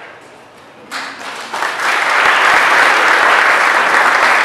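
Audience applauding: clapping breaks out about a second in and quickly builds to loud, steady applause.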